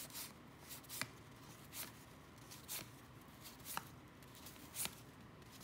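A stack of 1988 Topps baseball cards being flipped through by hand, one card at a time: a faint papery flick about once a second.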